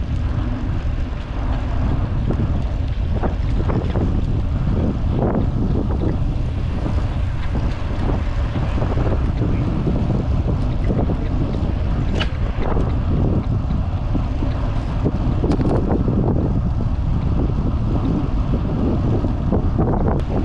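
Steady wind noise buffeting a handlebar-mounted action camera on a moving road bicycle, over a low rumble from the ride. Short sharp clicks and knocks from the bike come through now and then.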